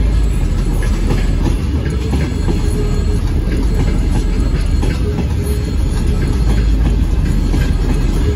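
Freight train of open-top gondola wagons rolling past close by: a steady loud low rumble, with the wheels clicking over the rail joints.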